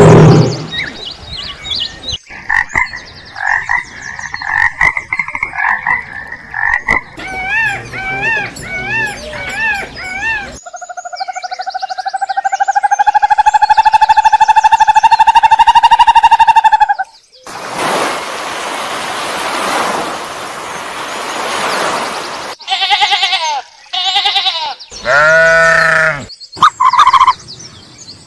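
A string of different animal calls, one after another: repeated rhythmic chirping and croaking calls, a long held whistle-like call that rises slightly, about five seconds of hissing noise, then several short calls.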